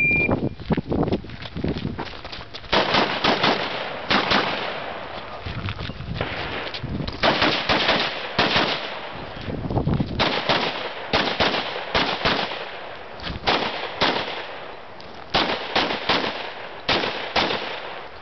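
A shot timer's short start beep, then a rifle fired in rapid strings of two and three shots, with short pauses between strings.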